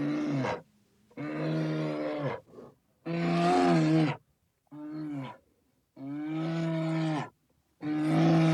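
Bear growling in a series of about six short roars, each lasting half a second to a second and a half, with brief silent gaps between them.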